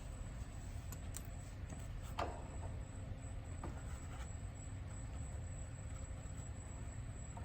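Steady low rumble with a few faint metallic clicks, one clearest about two seconds in, as the brass cap on an HVAC service valve is tightened by hand or wrench.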